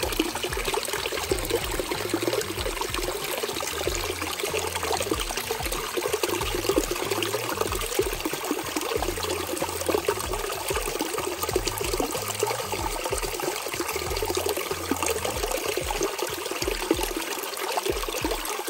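Small stream of water trickling over a mossy bank and splashing into a shallow, stony pool below, a steady splashing trickle.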